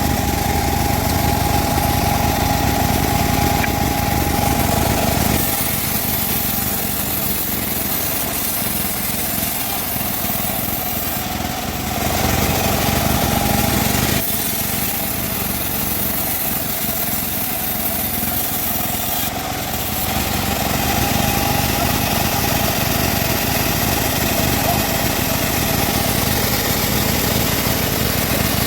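Engine-driven band saw running steadily while cutting timber, its engine note and a steady high tone rising and falling in level: louder at the start, again about twelve seconds in, and from about twenty seconds on.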